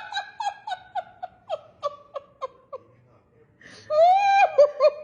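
A person laughing hard in a run of short, high-pitched pulses, about three a second, with a brief pause past the middle, then a longer rising burst of laughter followed by more pulses.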